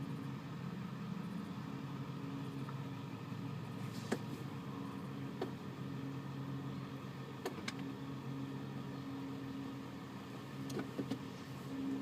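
Car engine idling steadily, heard from inside the cabin, with a few light clicks and knocks scattered through it.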